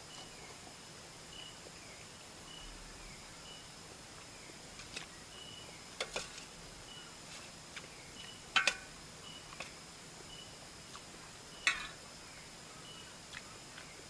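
Insects chirping steadily: a short high chirp repeats about every 0.7 seconds over a constant high buzz. A few sharp knocks break in, the loudest a double knock just past halfway and another near the end.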